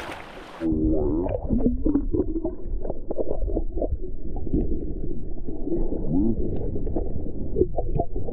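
Muffled underwater sound from a submerged action camera: shallow water sloshing and rumbling against the housing, with dull knocks and a few short gliding tones. It starts when the camera dips under the surface about a second in.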